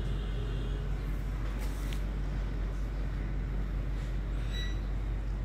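Hot air rework station (Baba 850AD) blowing steadily, a constant airflow hiss over a low hum, heating the board to resolder the reballed Wi-Fi IC.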